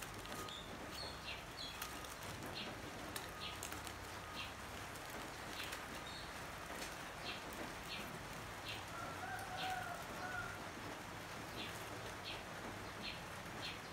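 Dry, charred banana-leaf wrappers rustling and crackling as they are pulled open by hand. A bird chirps repeatedly in the background, with a short warbling call about nine seconds in.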